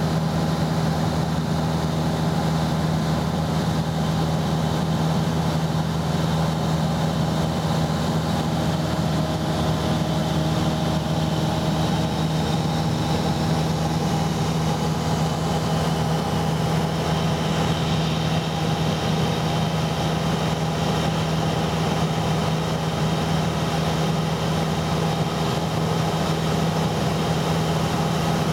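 Steady drone of a light aircraft's piston engine and propeller, heard from inside the cabin, with an even low hum and no change in pitch.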